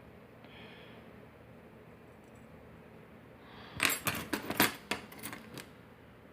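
A quick cluster of small metallic clicks and taps lasting under two seconds, starting a little past halfway: small parts of a Yale padlock being handled as pins and springs are fitted back into it.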